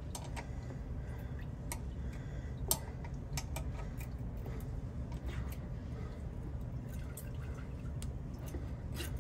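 Scattered sharp metallic clicks of a 10 mm wrench on a rear drum brake's bleeder valve as it is tightened after bleeding, over a steady low rumble.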